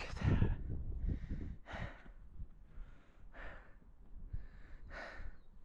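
A hiker's heavy breathing on a climb, a loud breath roughly once a second, over a low rumble.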